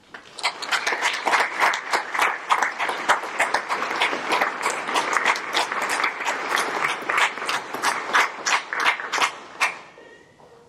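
Audience applauding, the clapping rising quickly at the start, holding for about nine seconds and dying away near the end.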